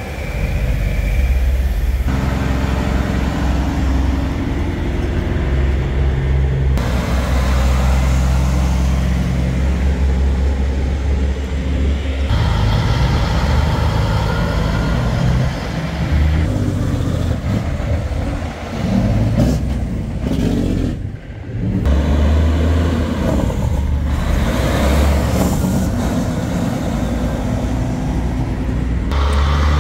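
Heavy diesel semi-truck engines running as the trucks pull past at low speed: a loud, deep, steady drone. The engine sound changes abruptly several times, with a brief drop about two-thirds of the way through.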